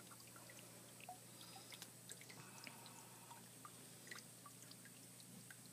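Near silence, with faint scattered wet clicks and squishes as a rattlesnake's skin is pulled down off the carcass by hand.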